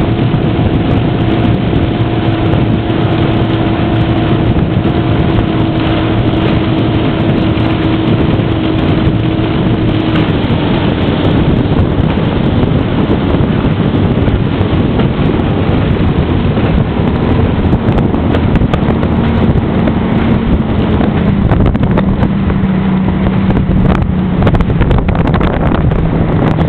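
Motorboat under way: its engine runs steadily under a heavy wash of wind and water noise. The engine's tone fades about ten seconds in, and a lower tone comes in later and steps down once more near the end.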